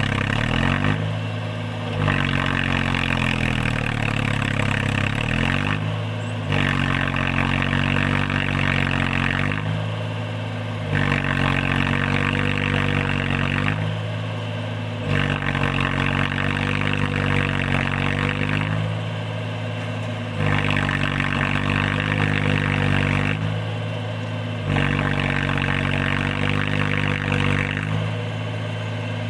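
Mahindra 275 DI tractor's three-cylinder diesel engine straining under load as it tries to haul a loaded trolley up a muddy slope. It comes on hard in repeated surges of about four seconds, easing off briefly between them, the pitch sagging as it lugs down.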